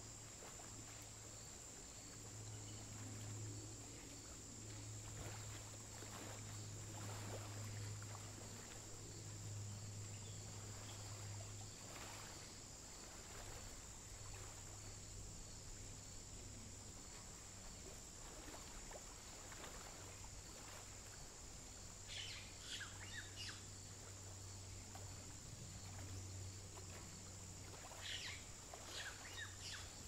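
Faint outdoor wetland ambience: a low steady hum with a thin high steady tone above it, and two short bursts of small-bird chirping in the last third.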